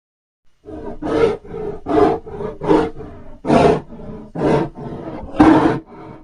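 Film sound effect of a Tarbosaurus vocalizing: a run of short roaring calls, about seven of them, coming roughly once every 0.8 s after a brief silence.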